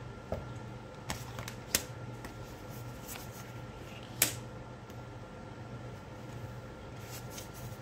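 Tarot cards being handled on a table: a few light, scattered taps and clicks, the sharpest just after four seconds, over a steady low hum.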